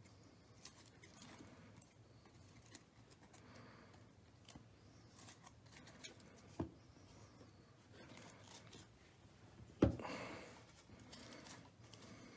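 Stack of Panini Prizm basketball trading cards being handled and sorted by hand: faint rustling and light clicks as the cards slide against each other. Two sharper knocks, at about six and a half seconds and just before ten seconds, the second the loudest, fit the stack being tapped or set down on the table.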